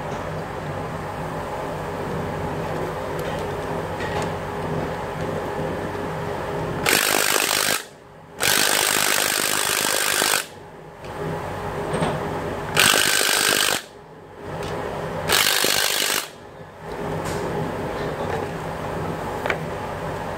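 Power tool run in four short bursts of one to two seconds, a loud hissing, rattling noise, over a steady workshop hum. It is being used on the bolts of an exposed Ford 3.0 V6 timing-chain setup.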